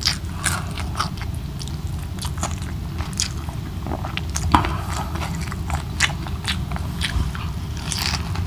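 Chewing and biting into crispy fried milkfish (daing na bangus), with irregular crunches and wet mouth clicks.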